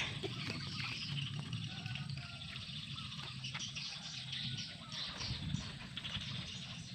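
Outdoor rural ambience: small birds chirping here and there over a steady low hum.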